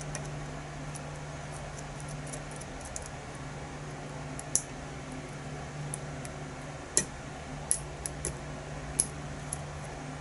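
Small metallic clicks and ticks of a lock pick and tension wrench working the pins inside a challenge lock: many faint ticks, with about half a dozen sharper clicks in the second half. A steady low hum runs underneath.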